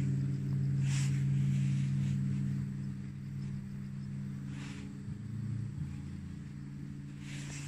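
Steady low hum running throughout, with a few brief soft rustles.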